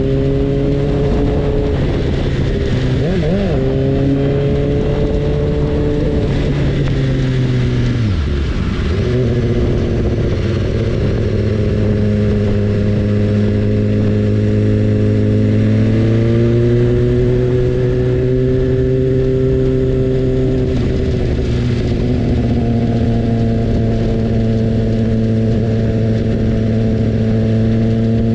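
BMW S1000RR inline-four engine running at a steady cruising speed under a constant hiss of wind and road noise. About eight seconds in its pitch drops sharply and climbs back, and it wavers briefly a few other times.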